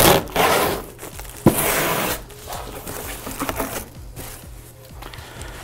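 Packing tape on a cardboard carton being slit with a box cutter and torn open: two long tearing rips in the first two seconds, then lighter rustling and handling of the cardboard.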